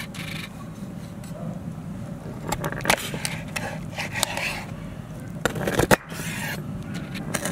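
A kitchen knife cutting a raw whole chicken apart on a wooden cutting board. There is scraping and cracking through bone and joints, and a few sharp knocks of the blade on the board, clustered about three seconds in and again near six seconds.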